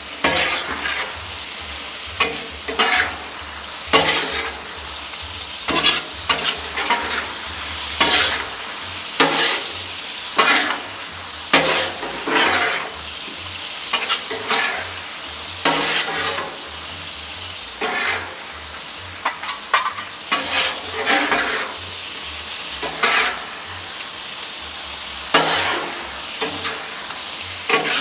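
Beef and broccoli sizzling in sauce on a Blackstone flat-top griddle, with a steady frying hiss and a spatula scraping and tossing the food across the steel top in irregular strokes about every second or two.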